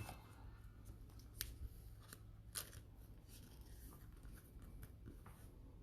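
Faint, scattered clicks and light rustles of trading cards being handled and set down.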